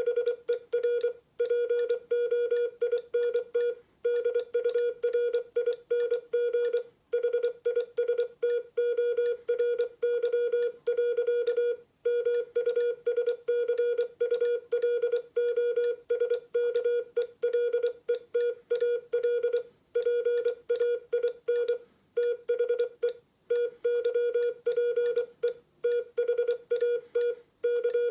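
Morse code sidetone of about 500 Hz keyed from a hand-made RA1AOM paddle, sending plain-language text in fast dots and dashes with short gaps between characters and words. Sharp clicks mark the start and end of the tones.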